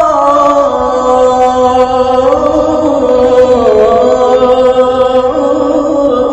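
A man's voice chanting the adhan (Islamic call to prayer), holding one long melismatic note without a break, its pitch winding slowly up and down and dipping about halfway through.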